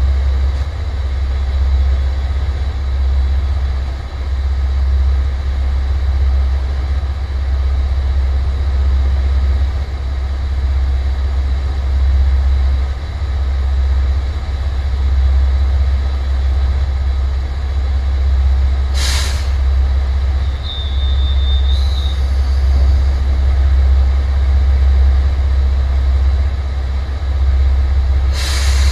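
Diesel railcars idling with a steady low engine rumble. About 19 s in there is a short hiss of released air, typical of air brakes, then a brief high beep. Another air hiss comes near the end.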